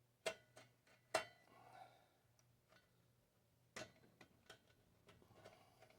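Scattered sharp clicks and faint scraping as hands and a hobby knife work a stuck picture tube loose along its taped seam. The three loudest clicks come near the start, about a second in, and just before the four-second mark.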